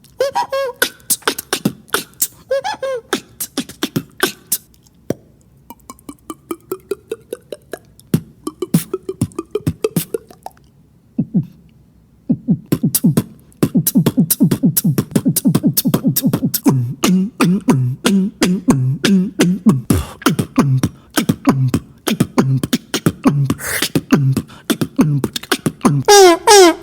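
A beatboxer making a string of mouth sound effects: sharp clicks and pops, a gliding pitched tone, then a fast run of low, drum-like pulses.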